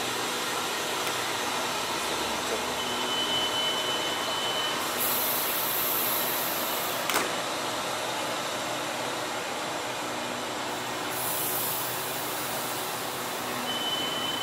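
Departing express passenger train's coaches rolling slowly past along a station platform, a steady running rumble. Two bursts of high hiss come in the middle and later, with a single sharp clack about seven seconds in and a thin high whine now and then.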